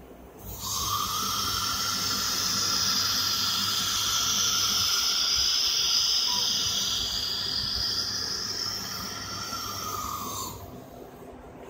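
The automatic-tool-change spindle of a FORSUN FS1630ATC CNC router hissing steadily during a tool change. The hiss comes in about half a second in and stops near the end.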